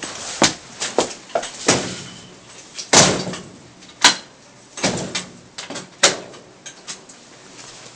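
A door being handled: a string of irregular knocks and clatters, loudest about three and four seconds in.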